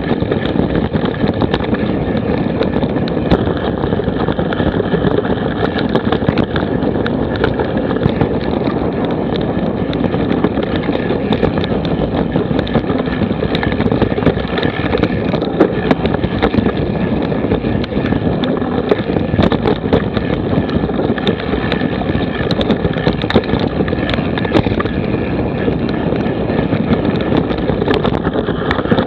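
Wind buffeting a mountain biker's action-camera microphone while riding a dirt trail, over steady tyre rumble, with frequent short rattles and knocks from the bike over rough ground.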